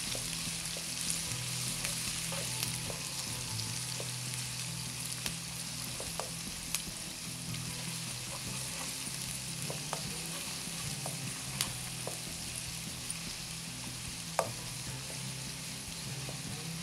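Sliced onions sizzling in hot oil in a non-stick wok as they are stirred and browned. The spoon gives an occasional sharp tap or scrape against the pan.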